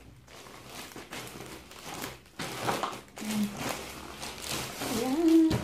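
Plastic courier mailer bag crinkling and rustling in irregular bursts as it is handled and pulled open. Near the end a short hummed voice sound rises and holds.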